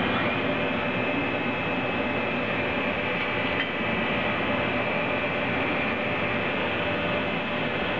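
Diamond 12CSJ Swiss-type CNC automatic lathe cutting metal: a steady machining noise with a thin, steady high whine running through it.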